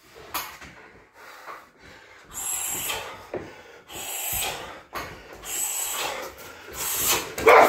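A man breathing hard, winded from heavy-bag kicking, in a string of loud exhales about every second or so, the last near the end the loudest.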